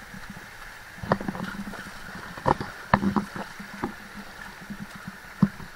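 Steady rush of flowing stream water, with a few irregular sharp knocks and splashes.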